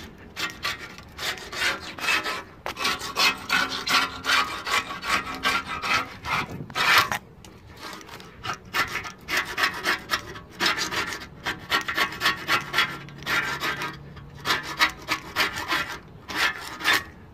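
Metal hand scraper scraping old paint off a cast iron bench frame in quick, repeated strokes, with a brief pause about seven seconds in. The paint is being scraped because it would not come up with the wire wheel.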